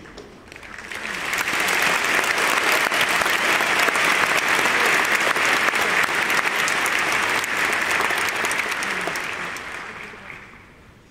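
Large arena audience applauding, swelling in about a second in, holding steady, then dying away near the end.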